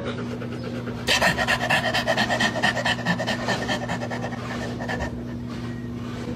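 Quick, even panting that starts about a second in and stops about five seconds in, over a steady low hum.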